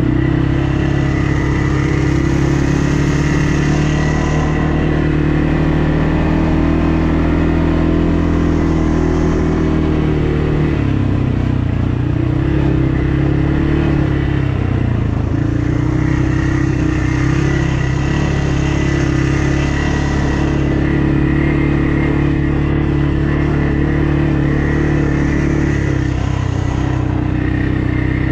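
An ATV engine running steadily under way on a trail. Its pitch drops and shifts with the throttle about eleven and fifteen seconds in.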